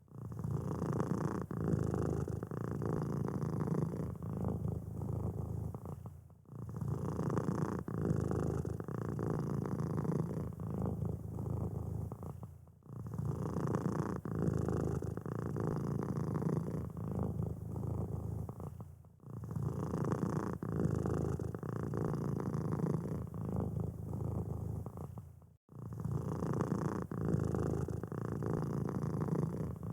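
Domestic cat purring steadily. The same stretch of about six seconds repeats over and over, with a brief drop at each join.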